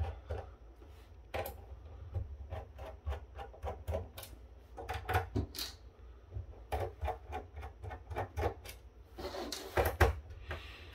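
Irregular clicks and ticks of a screwdriver and small screws working on the thin metal case of a Blackmagic HyperDeck Studio Pro 2 as its lid is being opened, with a longer scraping rub about nine seconds in.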